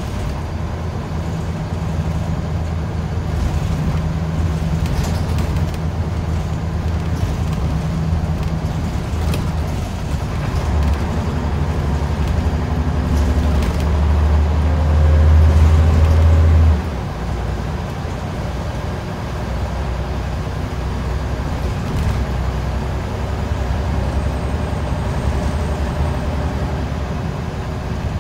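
Scania L94UB single-decker bus heard from inside the passenger saloon while under way: a steady low engine drone mixed with road noise and light clicks and rattles. About ten seconds in the engine note builds and grows louder, then cuts off suddenly about seventeen seconds in and settles back to a steady drone.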